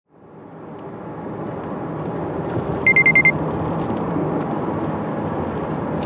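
Steady road and running noise heard from inside a moving Honda Vezel Hybrid, fading in at the start. About three seconds in there is a quick run of five short, high electronic beeps.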